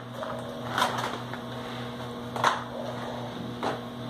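A few light knocks from handling a motorcycle tyre and inner tube by hand on a tyre-changing stand, over a steady low hum.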